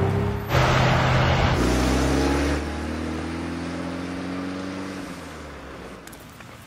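A car pulling away and driving off. Its engine rises slowly in pitch as it gathers speed and fades out over a few seconds.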